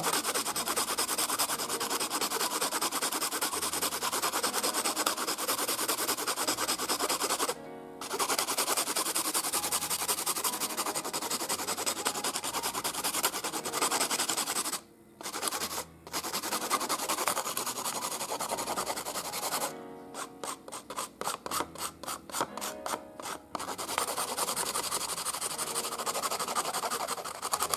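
Charcoal pencil tip rubbed back and forth on sandpaper, a continuous scratchy rasp that breaks off briefly twice. Near the end it turns into a run of short, quick strokes, about four a second.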